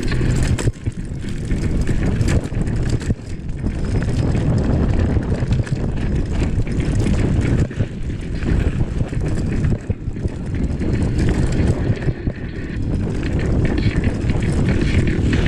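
Wind buffeting the microphone as a mountain bike descends at speed over rough dirt, with frequent knocks and rattles from the bike and tyres over bumps.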